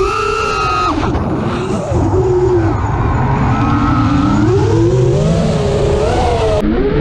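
FPV quadcopter's four brushless motors (Emax LS 2207 2550kv) and propellers whining in flight, the pitch rising and falling as the throttle changes, over low wind rumble on the onboard camera's microphone.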